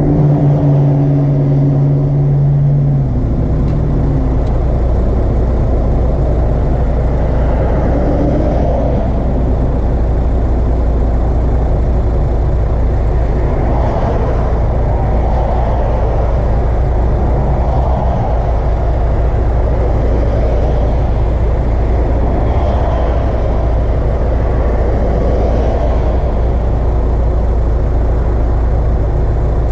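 Car engine fitted with an Acuity aftermarket cold air intake, running steadily; its note drops about three seconds in, then holds as a steady low drone.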